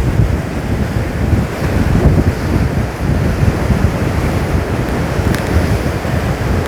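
Heavy surf driven by an approaching typhoon, rough waves breaking and churning into white foam in a continuous loud rumble. Strong wind buffets the microphone.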